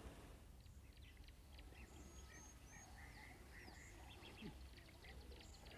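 Faint birdsong: scattered short chirps and a few small whistled glides, over a low steady hum.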